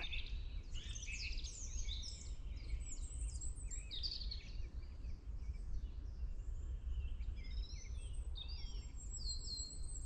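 Faint, very high-pitched, thin song of a firecrest (first taken for a goldcrest), with a drawn-out high note near the end, over other songbirds singing in the woods.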